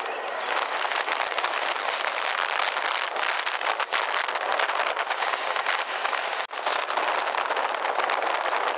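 Steady rushing road and wind noise of a car driving on a highway, heard from inside the car as it passes through a tunnel. There is a brief dropout about six and a half seconds in.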